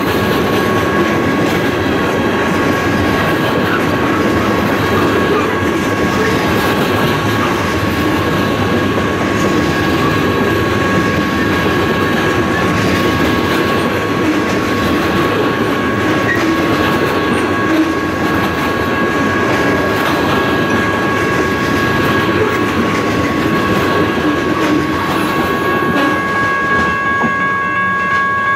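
Freight train tank cars rolling past a grade crossing, their wheels clicking steadily over the rail joints, with a crossing-signal bell ringing steadily throughout.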